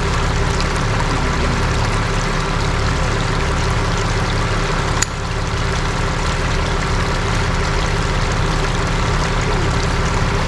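Steady vehicle running noise, a low engine hum under a rushing hiss, with one sharp click about halfway through.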